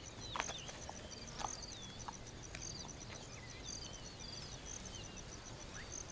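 Birds calling in the bush: a steady series of short high chirps and repeated downward-swooping whistles, with scattered short clicks and snaps.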